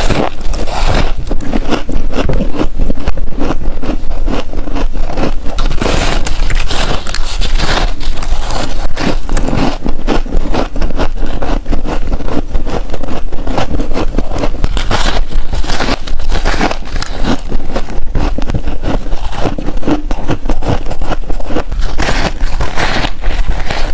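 Close-miked biting and chewing of a soft block of freezer frost, a dense, continuous run of crunching and crackling.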